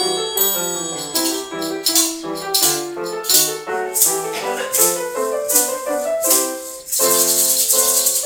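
A noise orchestra playing a polka: pitched metallophone and keyboard melody notes with a shaker-type rattle striking on the beat about twice a second, which turns into one continuous shake near the end.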